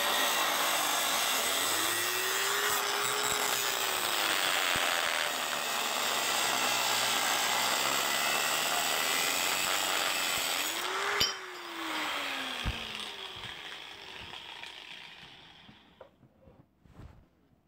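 A $15 Harbor Freight angle grinder cutting through the stock flange of a cast-iron exhaust manifold, its motor pitch sagging and recovering as it bites. About eleven seconds in it is switched off with a click and winds down, falling in pitch and fading out, followed by a few light knocks.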